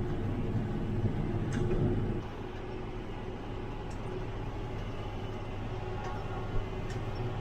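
Tractor engine running steadily, with a few level tones in its drone. About two seconds in it drops to a quieter, lower-loaded note and carries on steadily.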